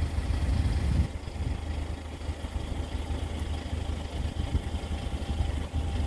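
Water of a mountain stream running over rocks, heard as a continuous low, uneven rumble under a faint hiss.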